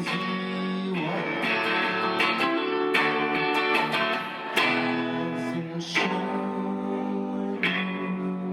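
Guitar strumming chords live, each chord left ringing until the next strum, about every second or so.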